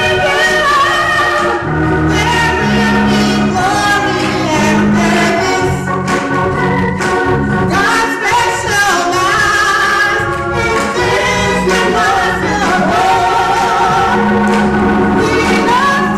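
Live gospel song: a woman sings lead on a microphone with backing singers, over organ and bass accompaniment and a steady beat of hand clapping.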